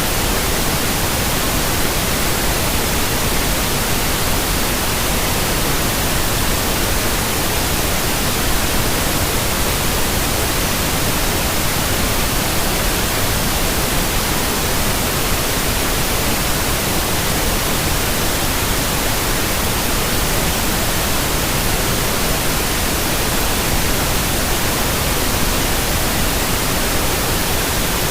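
Steady synthetic white noise for baby sleep: an even, unchanging hiss across all pitches, with no tones or breaks.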